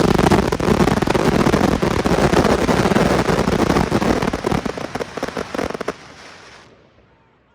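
Fireworks closing barrage: a dense, continuous run of bangs and crackle that stops about six seconds in, then dies away.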